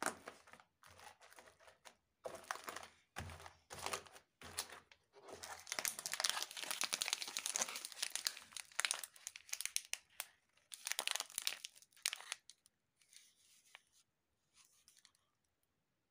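Plastic wrappers of Britannia Treat Jim Jam biscuit packets crinkling as they are picked up and handled, in irregular bursts that are busiest in the middle and thin out near the end.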